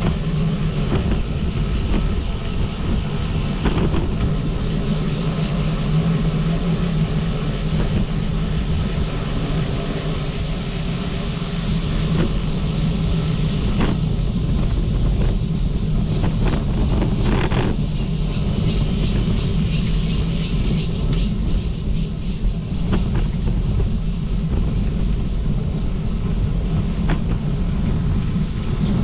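Steady low rumble of travel noise from moving along the path, with a few brief clicks and rattles.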